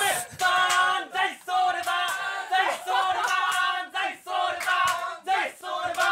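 A group of men shouting "banzai!" together over and over, loud rhythmic cheers in unison.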